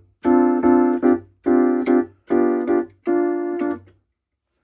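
Casiotone 401 electronic keyboard playing one of its preset voices: a run of about five notes at the same pitch, each held for under a second, stopping about four seconds in.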